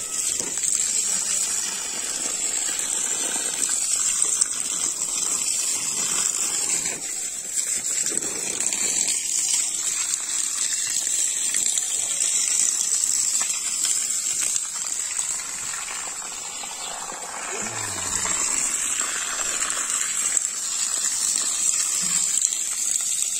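Water gushing steadily from a garden hose onto soil and plants, with a steady high-pitched hiss.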